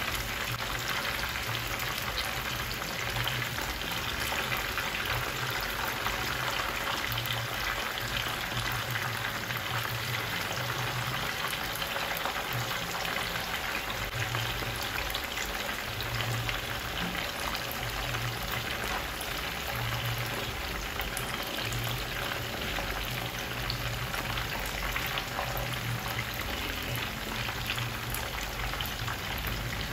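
Croaker fish pieces frying in a pan of oil: a steady bubbling sizzle. The cook puts the vigorous bubbling down to ice still on the thawed fish.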